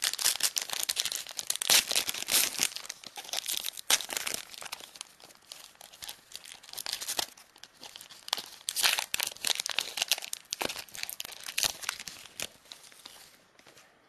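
Plastic wrapper of a 2012 Momentum football card pack crinkling and tearing as it is opened by hand, in irregular bursts of crackle that stop shortly before the end.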